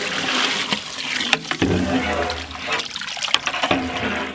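Water pouring and sloshing into a large aluminium cooking pot as a long metal ladle stirs it, with a few sharp knocks along the way.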